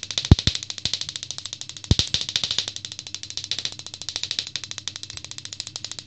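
High-voltage spark gaps in a homemade flyback-transformer circuit firing in a rapid, even train of snaps, with several louder sharp cracks in the first couple of seconds as the top bus bar is shorted with pliers and throws sparks.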